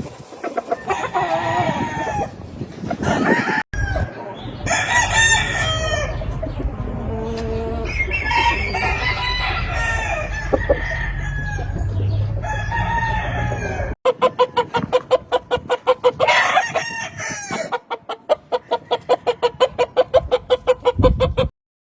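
Gamefowl roosters crowing and clucking, in several takes joined by abrupt cuts. In the last part there is a fast run of short repeated calls, several a second, which stops suddenly.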